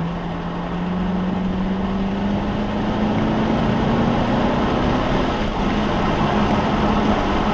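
Car engine drone heard from inside the moving car, rising gently in pitch over the first few seconds as it accelerates and then holding steady, over a constant wash of road and wind noise.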